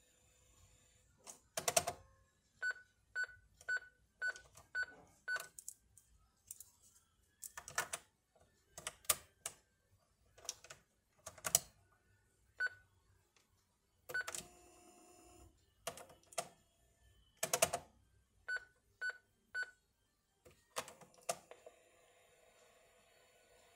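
Buttons being pressed on a Panasonic KX-T4311 answering machine, whose microswitches have been cleaned: sharp clicks and short key beeps at one pitch, at times in runs of about two a second.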